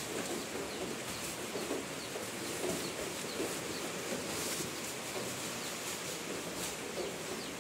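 Chickens clucking continuously, with small high peeps like chicks, and now and then the rustle of fresh leaves being shaken out of a sack onto a silkworm tray.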